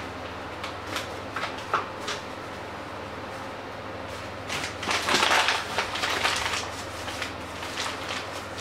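Kitchen handling noises: a few light taps as flour is shaken from a paper bag into a steel mixing bowl, then a louder rustle of about two seconds, about halfway through, as the bag is handled and carried off. A steady low hum runs underneath.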